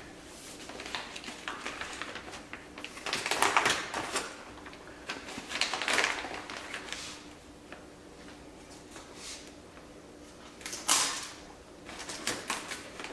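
Clear plastic sheeting crinkling and rustling as it is folded, smoothed and pressed by hand around a canvas painting, coming in a few short bursts with quieter handling between them.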